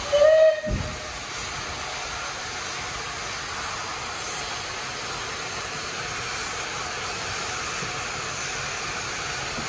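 Steam railway at a station: a short, loud whistle-like blast just after the start, then the steady hiss and rumble of the steam train standing at the platform.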